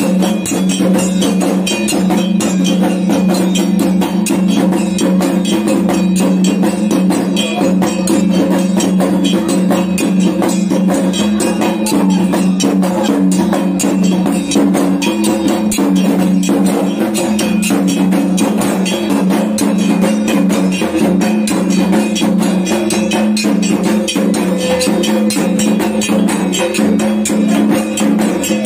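Kendang drums beaten in a fast, unbroken rhythm, with a steady low tone sounding underneath, as Dayak belian ritual music.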